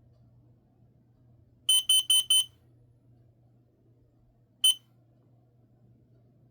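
Kidde i12010SCO combination smoke and carbon-monoxide alarm sounding its piezo horn during a test: four quick, shrill beeps, the temporal-4 carbon-monoxide alarm pattern, then a single beep a couple of seconds later.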